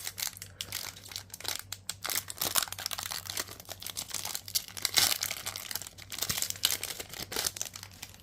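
Foil trading-card booster pack wrapper crinkling and tearing as it is ripped open and handled, a dense run of crackles that stops abruptly near the end.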